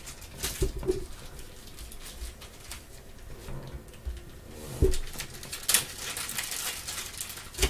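Quiet handling of trading cards on a tabletop: soft taps and a light thump, with a brief rustle about six seconds in.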